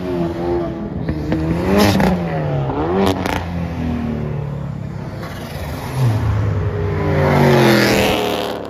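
Several sports cars, among them a Hyundai Veloster, a Ford Mustang RTR and a Chevrolet Camaro, accelerating hard past one after another. Each engine note rises as it revs and then drops as the car goes by. There are a couple of short, sharp cracks about two and three seconds in, and the loudest rising pass comes near the end.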